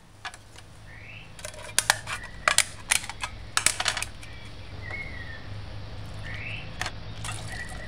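Metal clinks and knocks of an opened tin can of kidney beans being handled and stirred with a spoon over a stainless steel bowl while the beans are rinsed, a cluster of sharp clicks in the first half and a few more later, over a steady low hum.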